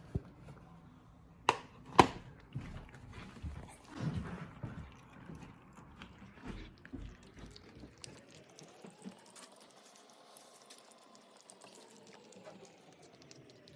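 Two sharp knocks about half a second apart, then faint scattered wet clicks and smacks of cats eating raw meat.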